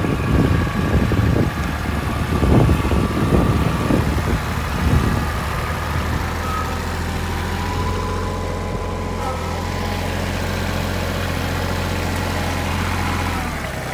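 Kubota compact tractor's diesel engine running as the tractor drives by: uneven low rumbling for the first five seconds, then a steady low drone that drops off slightly near the end.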